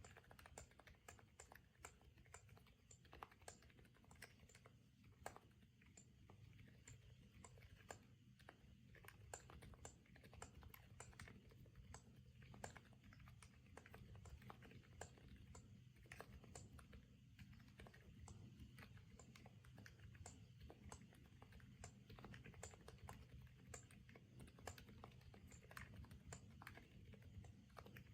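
Quiet, continuous typing on a Stars-75 custom mechanical keyboard with a CNC aluminium case: a quick, irregular run of soft keystroke clicks, several a second.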